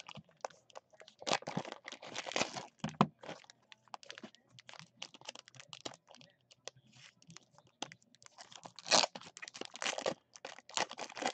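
Plastic wrapping and card sleeves crinkling and tearing as a trading-card pack is opened and its cards are handled. The sound comes in irregular crackly bursts, loudest about a second in and again about nine seconds in.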